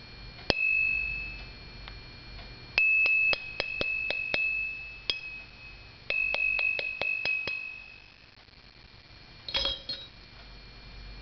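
Large chrome-steel 6-point socket struck with metal, ringing like a bell with one clear high tone: a single strike, then two quick runs of about seven taps each, the ring fading after each run. A brief metallic rattle near the end.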